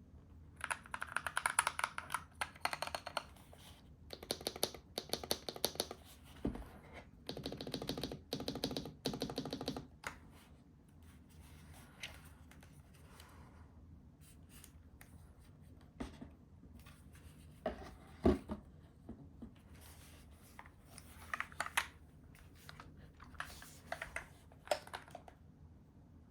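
Typing on a NuPhy Halo96 wireless mechanical keyboard: three quick runs of key clicks in the first ten seconds, then scattered single keystrokes and a couple of dull thumps.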